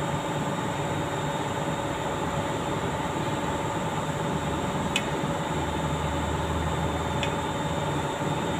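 Steady background rumble and hiss, with a low hum that swells for a couple of seconds past the middle. Two short clicks, about five and seven seconds in, come from wires and a screwdriver being handled in a plastic crane pendant box.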